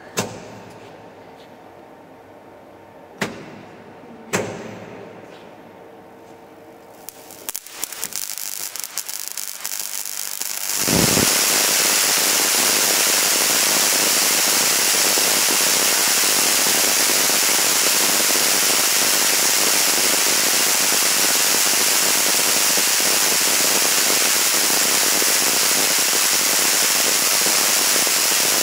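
High-voltage sliding discharge creeping over a glass pane at about 150 kV. A few single sharp snaps come in the first seconds. Sparking crackle builds from about seven seconds in and becomes a continuous, loud, hissing crackle from about eleven seconds on.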